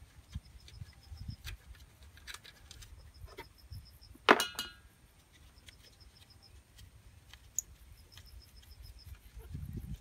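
Small clicks and knocks of a gloved hand working on a scooter carburetor, with one sharp metallic clink that rings briefly about four seconds in.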